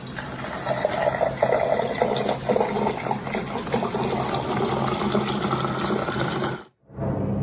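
Running water, a steady rushing noise that cuts off suddenly near the end.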